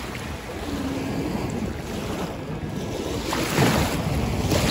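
Small waves lapping and washing, with wind rumbling on the microphone; a louder wash of water comes about three and a half seconds in.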